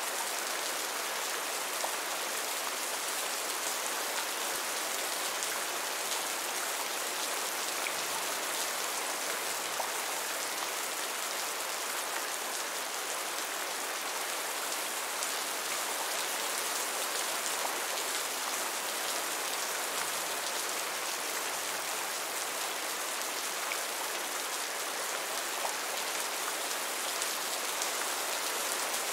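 Steady heavy rainfall: an even hiss of countless drops, with a few distinct drop ticks here and there.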